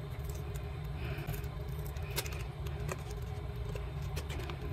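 Thin plastic pry card scraping and clicking against the edge of a smartphone's plastic back cover as it is worked under the cover to part the adhesive, a few light clicks, the sharpest about two seconds in, over a steady low hum.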